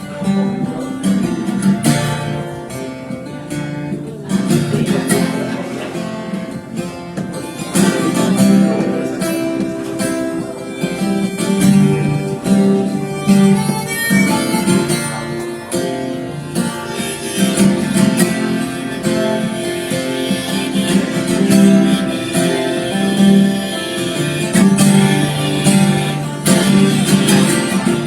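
Acoustic guitar playing the instrumental introduction to a folk song, with a steady strummed rhythm and no singing yet.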